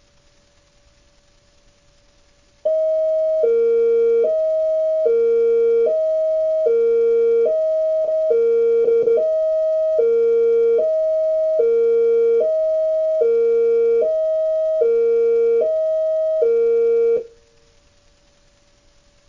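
Homemade Bluetooth electronic siren, a small speaker in a cup, playing a Whelen-style hi-lo tone: two pitches alternating evenly, each held a little under a second. It starts a few seconds in, stutters briefly near the middle, and cuts off abruptly near the end.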